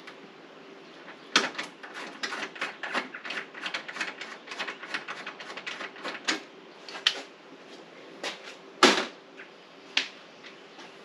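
Hand tools clicking and tapping on metal: a quick, uneven run of sharp clicks lasting about five seconds, then a few scattered, louder knocks.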